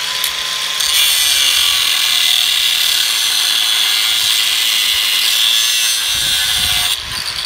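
Electric angle grinder with a thin cutting disc spinning up, then cutting into steel rebar from about a second in: a steady, loud, high-pitched cutting noise that eases off about seven seconds in.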